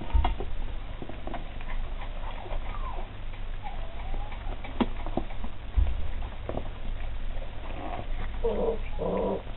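Anglo Wulfdog pups chewing raw chicken carcasses from a metal bowl, with scattered clicks and knocks of teeth and paws on the bowl and a few short high squeaks or whines; a louder pitched vocal sound comes near the end.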